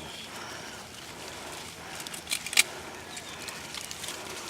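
Plastic bird netting rustling as it is handled and cut by hand, with a couple of short sharp snips about two and a half seconds in.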